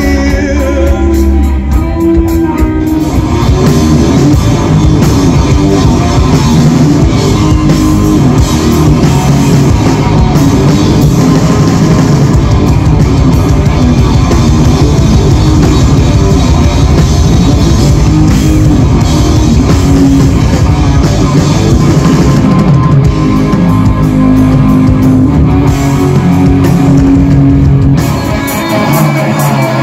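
Live rock band playing loud through a PA: electric guitars, bass guitar and drum kit. The sound shifts and dips slightly near the end.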